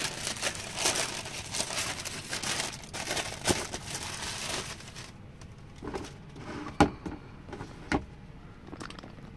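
Tissue paper crinkling and rustling as it is pulled back in a sneaker box, continuous for about five seconds. Then a few separate sharp knocks, the loudest about two thirds of the way in, as the sneaker is lifted out and set down.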